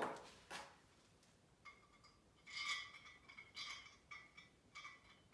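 Faint metallic clinking and scraping from about a second and a half in, a string of short rings, as a long pan-head bolt is worked into the steel axle of a rolling table saw stand.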